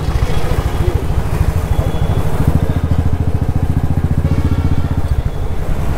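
Motorcycle engine running while riding, a rapid, even low thudding of exhaust pulses over road hiss, the pulses louder for a few seconds in the middle.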